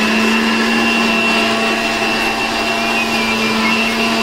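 Indian mixer grinder (mixie) running at full speed with a steady motor hum, its steel jar grinding fried onion, tomato, garlic and green chilli into masala paste.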